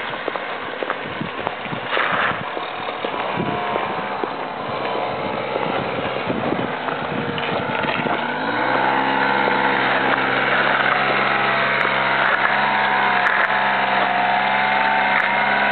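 Honda Spree's small two-stroke scooter engine, heard faintly under uneven rustling at first, then revved up a little past halfway and held at a steady high pitch, the throttle held open in a burnout attempt with the rear wheel on gravel.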